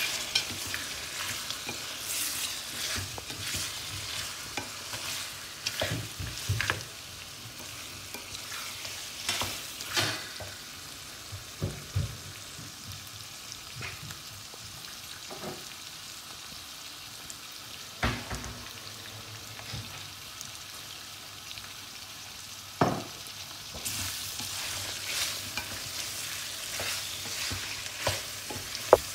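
Mutton pieces on the bone and freshly added tomato wedges sizzling as they fry in a metal karahi, stirred with a wooden spoon that knocks against the pan every few seconds.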